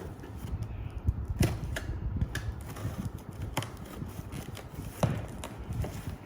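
Irregular clicks and light knocks of objects being handled, a dozen or so at uneven spacing with two louder knocks, over a low rumble.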